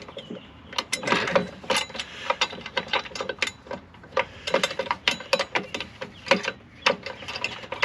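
Socket ratchet wrench clicking in quick, uneven runs as nuts are run onto running-board mounting bolts, left short of tight.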